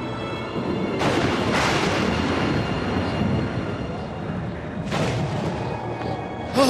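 Wind sound effect, gusts rushing through with sudden swells about a second in and again about five seconds in, over background music.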